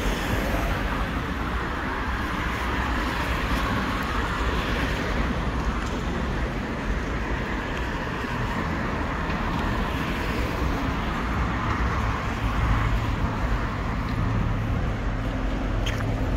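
City street traffic: a steady wash of cars and vans running on a busy road, with a low steady engine hum coming in about two-thirds of the way through.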